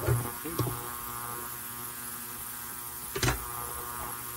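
Steady electrical mains hum, with a few short knocks as saw parts are handled on the bench, the loudest about three seconds in.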